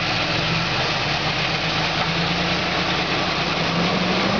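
Engine of a lifted rock-crawling 4x4 running at low revs under load as it climbs a rock ledge, its pitch creeping up slightly near the end.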